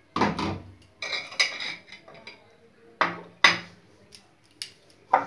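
Knocks and clinks of kitchenware against a ceramic plate of fried shrimp being readied with rice flour for mixing: a knock at the start, a clatter about a second in, two more knocks around three seconds in, and a few short clicks near the end.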